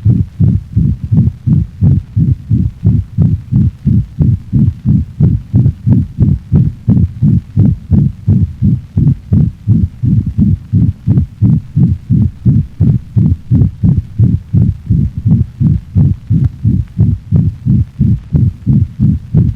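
A dog's heart heard through a stethoscope recording: a fast, even beat of about two beats a second, with a murmur filling the gaps between the heart sounds, typical of the stenosis and septal-defect murmurs in a canine heart-sound teaching set.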